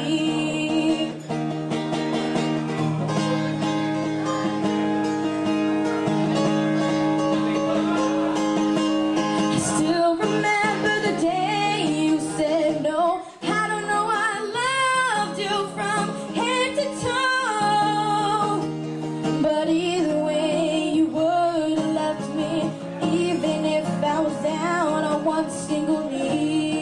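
A young woman singing into a microphone, with an acoustic guitar accompanying her. From about ten seconds in, her voice moves in wavering runs and held notes.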